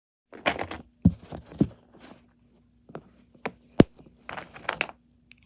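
Plastic Mathlink cubes being handled and snapped together: a series of sharp clicks and short rustling clatters, loudest about a second in and near four seconds.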